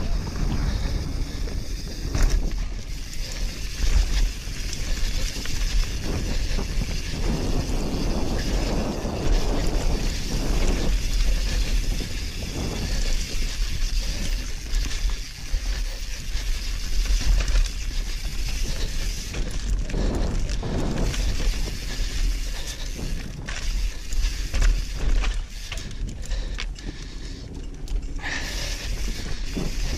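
YT Capra enduro mountain bike riding fast downhill over a rough, rocky dirt trail: tyres crunching over loose stones, the bike rattling and knocking over bumps, and wind buffeting the camera microphone.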